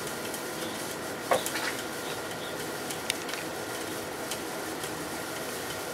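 Sharp 8,500 BTU window air conditioner heard from outside, running with a steady noise and scattered small clicks and splashes from water sloshing around in it.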